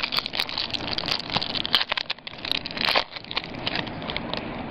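Foil trading-card pack wrapper crinkling as it is handled, an irregular run of sharp crackles.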